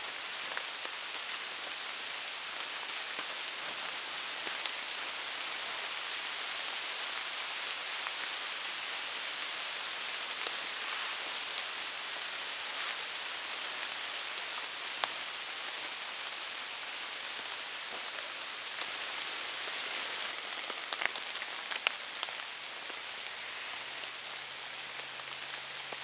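Steady rain falling through the forest canopy, an even hiss with a few single sharp drop-like ticks standing out, several of them close together near the end.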